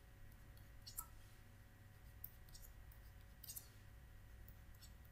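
Faint light clicks and taps of a stylus writing on a tablet, a few scattered strokes with a short cluster about three and a half seconds in, over near-silent room tone with a faint steady hum.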